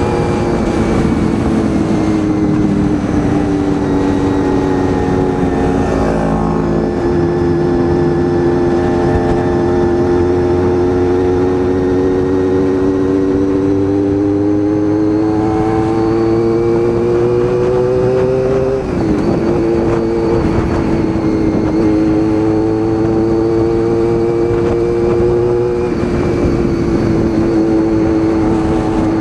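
Honda VFR400 NC30's V4 engine running steadily under way. Its pitch sags a little at first, then slowly climbs, dips briefly about two-thirds of the way through, and holds steady to the end.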